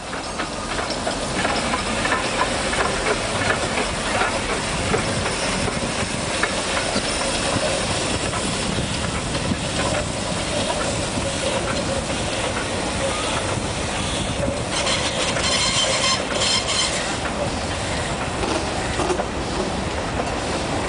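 Narrow-gauge NGG16 Garratt steam locomotive passing at work, followed by its coaches rolling by on the rails. The sound rises over the first couple of seconds and then stays steady.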